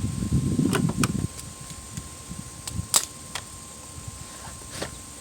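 Ratchet on a long extension clicking rapidly for about a second as it tightens a battery hold-down bracket nut, followed by a few sharp separate clicks of metal tools.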